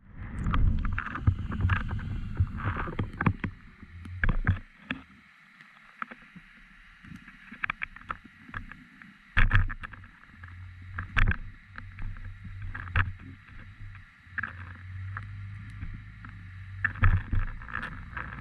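Muffled water rumble with irregular knocks and clicks, picked up through an underwater camera housing lowered on a line from a fishing kayak.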